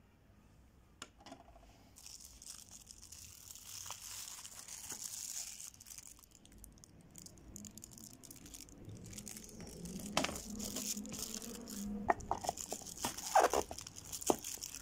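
Cardboard packaging being handled: rustling and scraping with scattered small clicks and taps, louder and sharper in the last few seconds.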